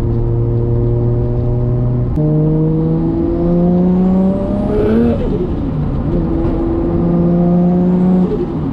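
Built 550 hp RB25DET turbocharged straight-six in an R33 Skyline on the move. The engine note jumps up about two seconds in and climbs steadily, drops sharply about five seconds in with a brief hiss, holds steady, then falls again near the end.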